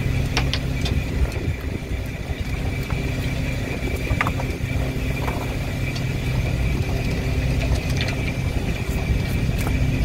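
Snow crab fishing boat's engine running steadily: a low drone with a thin steady whine above it. A few light clicks and knocks are scattered through.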